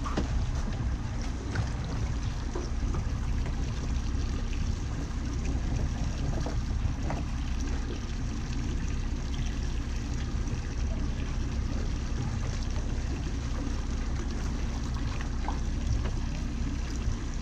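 Outboard motor of a small motorboat idling steadily, with water trickling and lapping around the hull and a few light knocks.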